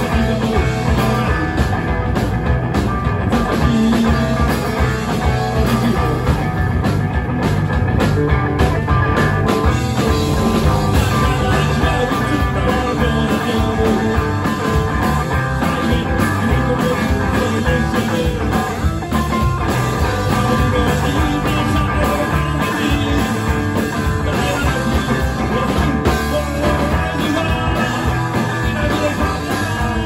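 Rock music with guitar, playing steadily without a break.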